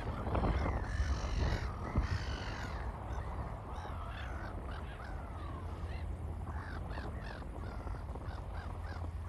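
Crows cawing: a few harsh caws in the first few seconds, then shorter calls scattered through the rest, over a low steady rumble.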